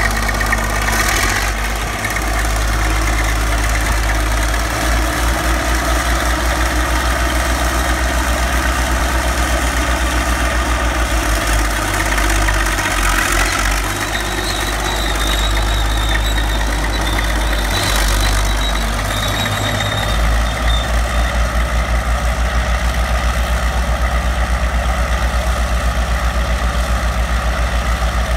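Siamese Twin Caterpillar D8 crawler tractor's diesel engine running with a low, even throb. The throb grows plainer in the last third.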